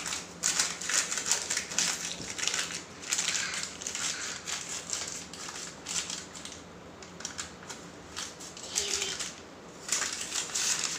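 Baking paper rustling and crinkling in short, irregular bursts as hands pull and fold it around a baked cake. It eases off for a few seconds after the middle, then picks up again near the end.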